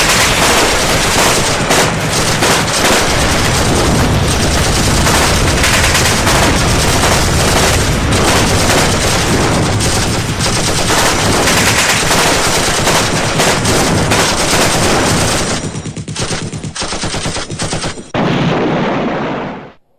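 Sustained rapid automatic gunfire, dense and loud, thinning into sparser bursts after about fifteen seconds and cutting off abruptly just before the end.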